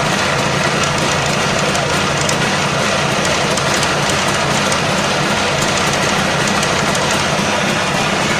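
JAWA 350/638 two-stroke twin engine running steadily with a knock from the right cylinder, which the owner says has grown louder over a month and cannot yet identify.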